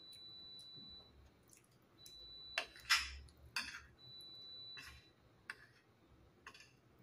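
Metal spoon and fork scraping and clinking against a plate of rice: half a dozen separate strokes, the loudest about three seconds in. A faint high steady tone comes and goes underneath.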